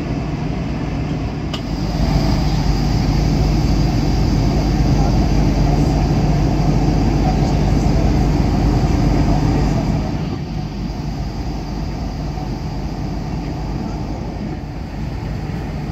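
Airbus A220 cabin noise during the climb after takeoff: a steady drone of its Pratt & Whitney PW1500G geared turbofans and rushing air with a low hum. It grows louder about two seconds in and eases back somewhat about ten seconds in.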